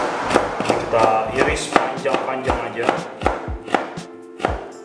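Chef's knife slicing a carrot on a cutting board, the blade knocking the board in quick, uneven strokes, with background music under it.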